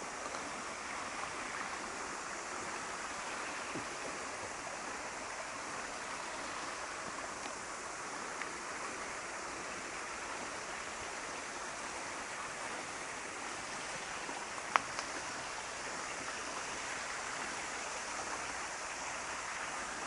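Small mountain river flowing, a steady rush of water, with one brief sharp click near the end.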